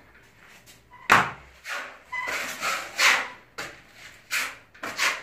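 Steel trowel spreading putty over a wall in a series of short scraping strokes, about seven in five seconds, with small grit caught in the putty.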